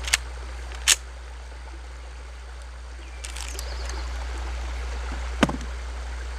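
Steady low rumble of wind on the microphone, with a few short sharp clicks: two in the first second and one about five seconds in.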